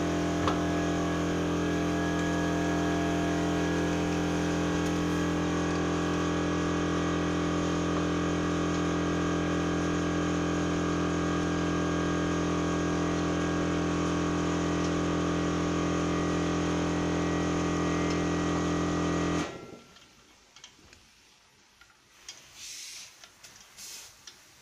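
A machine running with a steady hum of several fixed tones, which cuts off suddenly about 19 seconds in; after that only faint light clicks and rustles are left.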